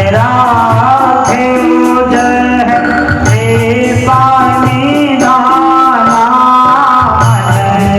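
Devotional singing of a bhajan-style verse, a solo voice carrying the melody over sustained instrumental accompaniment, with a hand drum beating steadily underneath.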